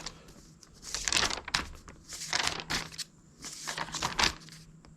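Paper pages of a motorcycle owner's manual being turned and leafed through: a series of quick papery rustles.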